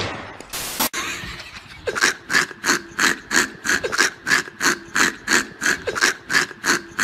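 Plastic trigger spray bottle squeezed over and over: short hissing spritzes, about three a second, starting about two seconds in.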